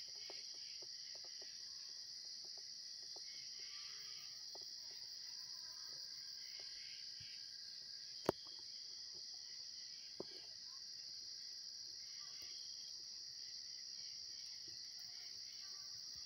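Steady high-pitched insect chorus, an even shrill trill with fainter pulsing chirps beneath it. A single sharp click about eight seconds in and a fainter one about two seconds later.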